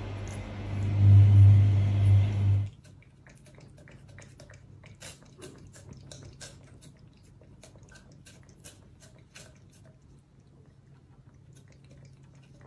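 A loud, steady low hum that stops abruptly about three seconds in. After it, an Oriental Shorthair cat licks yogurt from a small bottle held up to its mouth, making quiet, quick, wet licking clicks a few times a second.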